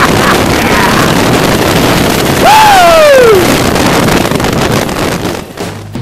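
Wind rushing over the microphone of a moving custom chopper motorcycle, with the motorcycle running underneath. About two and a half seconds in, a single falling whoop rises above the wind.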